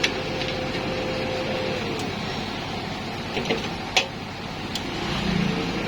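Used welding machine running, a steady hum over a noisy hiss, its tone sagging about two seconds in and coming back up near the end, with a few sharp clicks.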